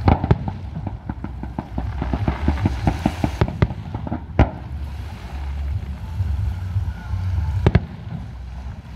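Fireworks display: a rapid string of crackling pops for the first few seconds, then two sharp, loud shell bursts, one about halfway through and one near the end.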